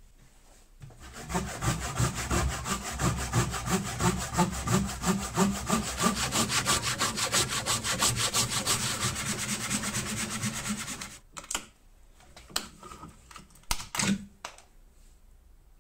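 Hand saw cutting through a block of wood in quick, even back-and-forth strokes that stop about eleven seconds in, followed by a few separate sharp knocks.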